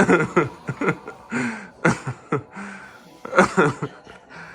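A man exhaling hard and out loud in a breathing exercise: a run of about six short, breathy voiced bursts, the loudest about three seconds in.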